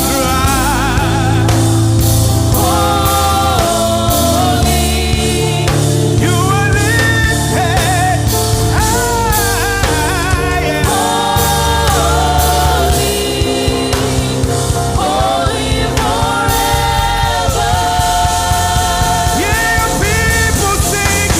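Gospel praise music: a lead singer and backing choir singing over a band with bass and drums.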